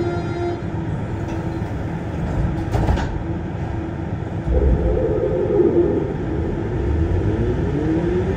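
On board a Siemens VAL 208 rubber-tyred automated metro car: steady rumble of the car. A steady tone stops about half a second in, there is a sharp knock about three seconds in, and near the end whining tones rise in pitch.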